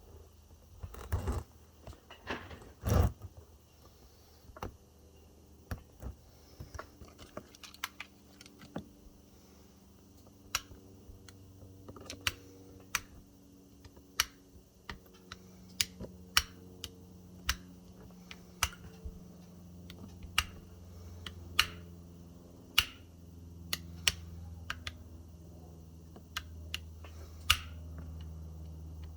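Sharp clicks and snaps of pliers biting and prying at an e-bike battery pack's cells, irregular, about one a second, with a louder knock about three seconds in.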